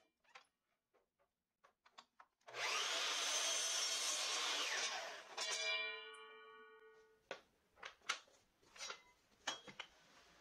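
A power saw cutting through wood for about two and a half seconds, its pitch dipping under the load. A fading hum follows as it winds down, then several sharp knocks and taps.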